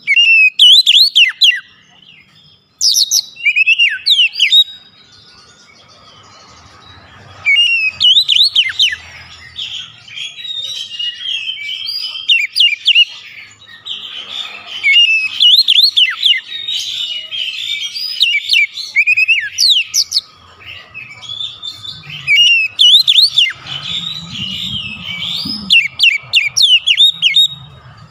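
Oriental magpie-robin (kacer) singing loud, rapid, varied whistled phrases. Short bursts are broken by pauses in the first several seconds, and from about ten seconds in it sings almost without a break.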